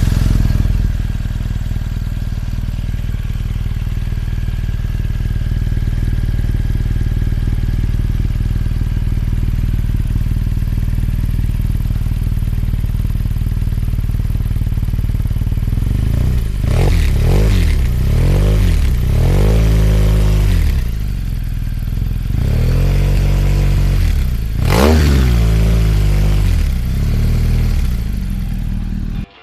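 BMW R1200GS boxer-twin engine running through an aftermarket Chinese exhaust. It idles steadily at first, then a little past halfway it is blipped repeatedly, the pitch rising and falling with each rev, with one sharp rev near the end. The sound then cuts off suddenly.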